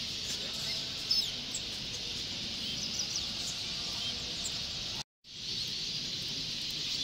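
A dense chorus of many caged canaries and finches chirping and singing at once, over the low hum of a large hall. The sound cuts out for a split second about five seconds in, then returns.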